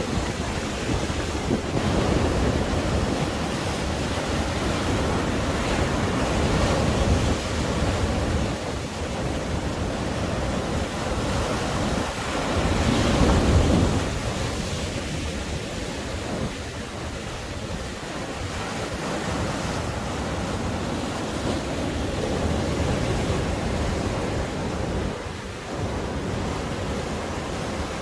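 Surf washing onto a sandy beach in a continuous wash of breaking waves, with sea wind buffeting the microphone. A bigger wave surges louder about halfway through.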